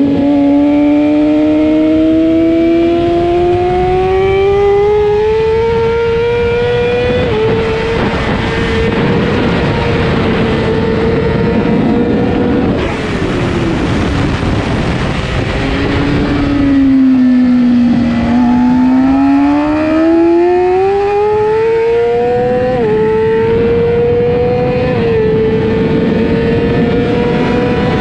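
A 600cc race bike's engine at racing speed, heard from on board over wind rush. It revs up steadily and holds high, falls away as the rider slows for a corner about halfway through, then climbs hard again in steps as it is shifted up through the gears.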